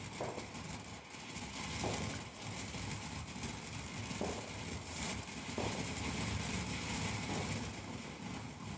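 Wind rumbling on the microphone, with a few faint, soft pops scattered through it.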